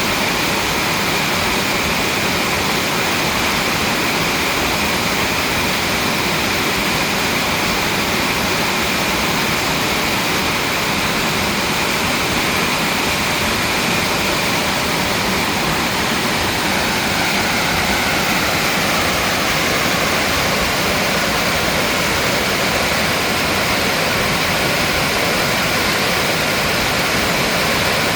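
Mountain valley stream running, a loud, steady rush of water.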